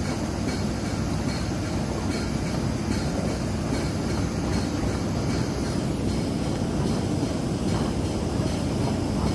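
Steady, even rumble of heavy machinery running, strongest in the low end, with no sharp blasts or breaks.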